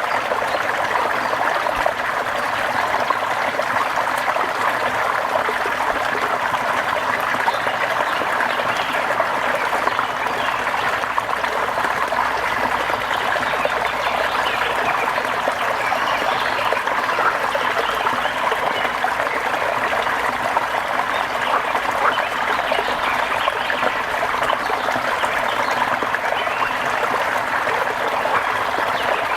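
Steady rain falling, a dense, even spatter of many small drops with no change in strength.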